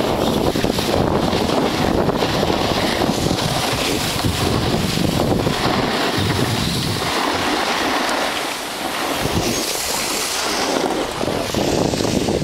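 Wind buffeting the microphone and skis scraping over packed snow during a downhill run. The low rumble eases about halfway through as the skier slows and stops.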